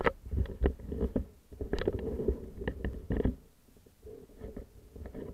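Irregular knocks and rumbling thumps close on the microphone, as from a bike-mounted camera being jostled or rubbed. They start suddenly, are loud for about three seconds, then go on fainter.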